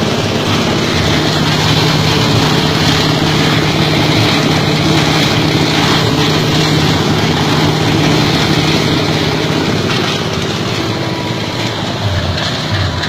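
8 hp diesel engine driving a plastic-bottle shredding machine, running steadily under power.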